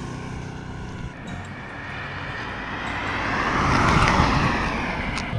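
A car passing close by: its tyre and engine noise swells to a peak about four seconds in, then falls away.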